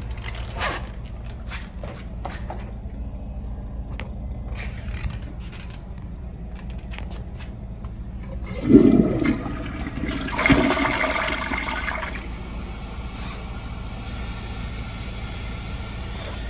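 Gerber Avalanche toilet flushing: after some scattered light clicks, a loud gush about eight and a half seconds in, a louder rush of water draining the bowl for a couple of seconds, then a steady hiss of the tank refilling.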